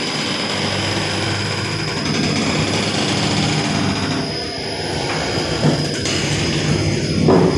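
6-inch soap plodder running with a steady machine drone and a thin high whine. A couple of short bumps come in the second half.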